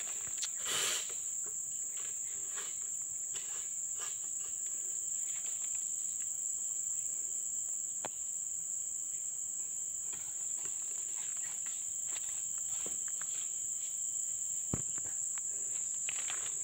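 Insects, crickets or cicadas, keeping up one steady high-pitched drone, with scattered faint rustles and clicks and one sharper click near the end.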